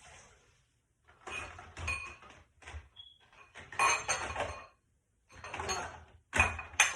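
Dishes and cutlery clattering and clinking as they are handled during hand dishwashing, in several separate bursts with short pauses between.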